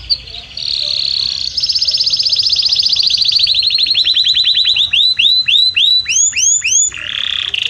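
Domestic canary singing: a very fast trill of rapidly repeated notes, slowing past the middle into separate looping whistled notes about three a second, then breaking into another rapid buzzing trill near the end.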